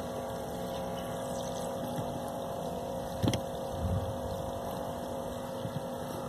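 Small battery-powered water-jug pump, fitted as the model boat's water pump and switched on by a servo, running with a steady hum. A single sharp click about halfway through.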